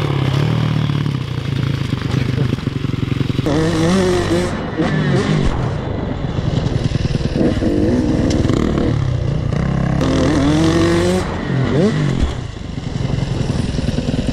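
Motocross dirt bike engine revving up and down repeatedly as it is ridden hard around a track, the pitch climbing and dropping every second or two.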